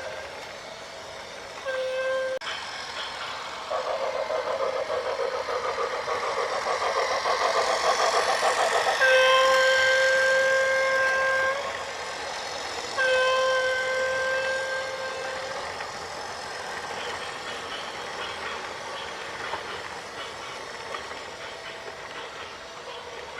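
A vehicle horn blows three times: a short blast, then two longer ones of about two and a half seconds each. A rhythmic rattling builds in the seconds before the long blasts.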